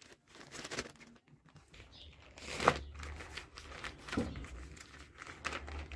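Thin plastic pouch, made from a shopping bag, crinkling and rustling as it is handled and pressed flat, with a few sharp clicks, the loudest about two and a half seconds in.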